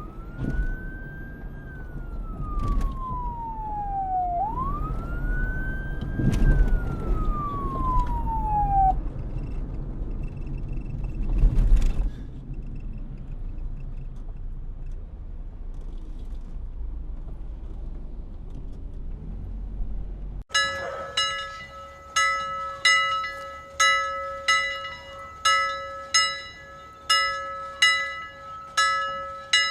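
Emergency-vehicle siren wailing in two slow rises and falls over street traffic rumble, which carries on alone once the siren stops. After an abrupt cut about twenty seconds in, a bell is struck over and over, roughly every half-second, its ringing tone held between strikes.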